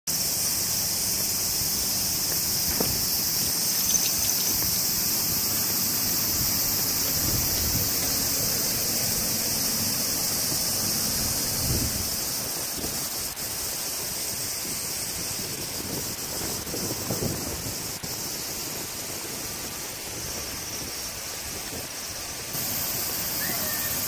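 Steady, high-pitched outdoor hiss, with a few soft low thumps. It eases off about halfway through and picks up again near the end.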